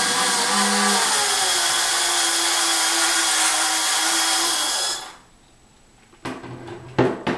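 Handheld electric drill running steadily as it bores a hole through a bottle cap into a piece of wood, its pitch dipping slightly under load. It stops abruptly about five seconds in, followed by a few light knocks.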